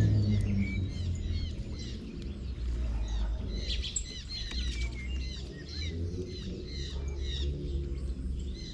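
A flock of small birds chirping and twittering, many short quick calls overlapping one another, over a low steady rumble.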